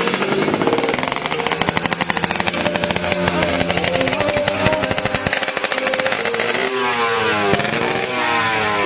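Tuned Kawasaki Ninja drag bike engine running at a steady pitch, then revved twice with a rising note in the last couple of seconds.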